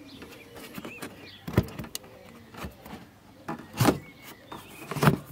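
Rubber dust cover being pulled off the back of a Nissan Primera P12 headlamp: rubbing and scraping of rubber on the plastic housing, with several short sharp pops, the loudest near the end.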